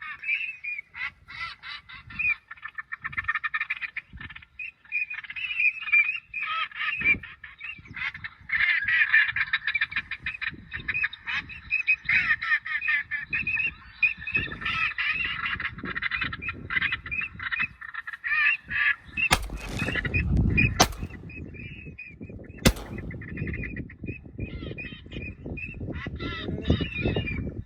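Many ducks quacking and calling in a dense, continuous chatter. In the second half, three shotgun shots ring out over the calling, the last one the loudest.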